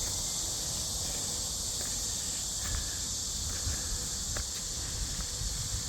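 Steady high-pitched chorus of insects such as crickets or cicadas, unbroken throughout, over a faint low rumble with a few small clicks.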